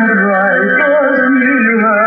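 Gospel hymn music: a melody with strong, even vibrato over steady held chords.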